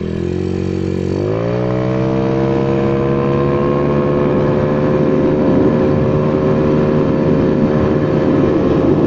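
Honda Vario 110 carburettor scooter engine, bored up to 55 mm (about 130 cc), under full-throttle acceleration. About a second in, its pitch rises quickly, then holds steady at high revs while the CVT lets road speed climb.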